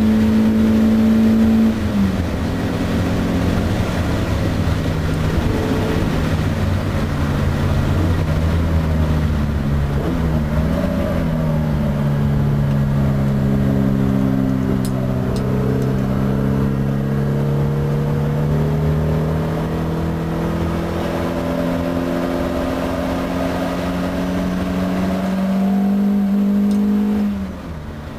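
Classic Alfa Romeo Bertone coupe's engine heard from inside the cabin, pulling hard around a racing circuit. Its pitch drops at a gear change about two seconds in, then climbs slowly for a long stretch and falls off sharply near the end as the driver lifts.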